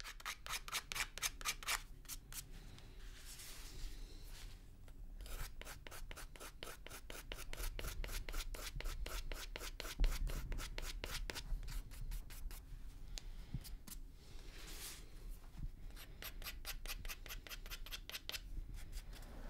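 Hand rubbing along the edge of a white mask, a run of quick scratchy strokes, about five a second, with short pauses now and then.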